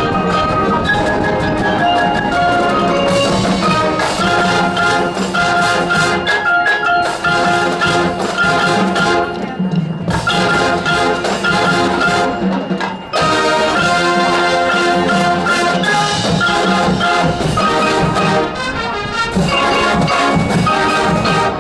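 High school marching band playing its field show, full band with mallet percussion such as marimba and xylophone prominent in many overlapping notes. The music eases briefly about thirteen seconds in, then comes back at full level.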